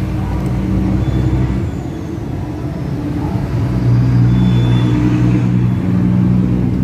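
A vehicle engine running with a steady low hum, growing louder about four seconds in.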